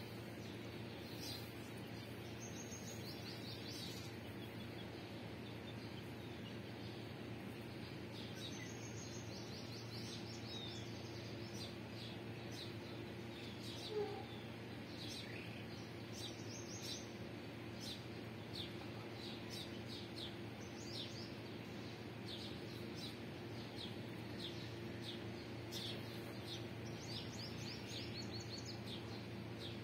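Chicks peeping: short, high chirps in quick runs, coming and going, over a steady low background hum. One brief, louder sound comes about halfway through.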